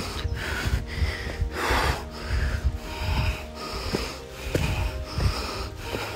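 A hiker breathing hard in a steady rhythm of in- and out-breaths while walking, with low footfalls beneath.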